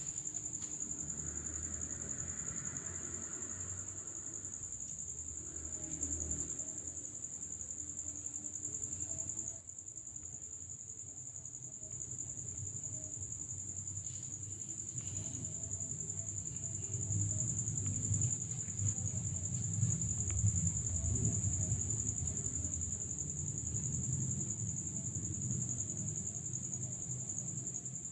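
A steady, high-pitched insect trill, likely crickets, over low, uneven rumbling.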